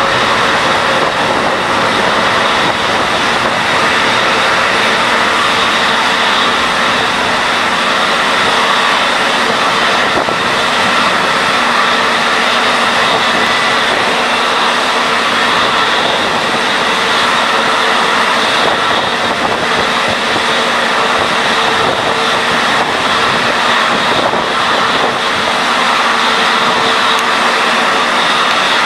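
Airbus A310's twin jet engines running at high power on the departure roll down the runway: a loud, steady jet roar with several whining tones held throughout.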